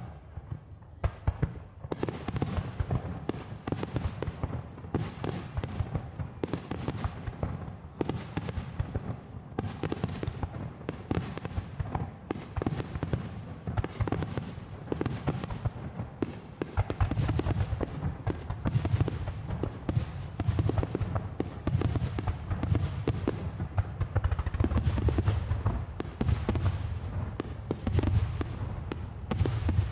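Fireworks display finale: aerial shells bursting in rapid, overlapping succession, with sharp cracks throughout. The booms grow heavier and deeper about halfway through.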